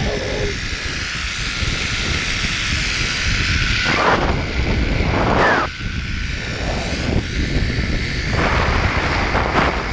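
Wind rushing and buffeting against the microphone of a rider speeding down a zip line: a loud, steady rush with a deep rumble and a few brief swells.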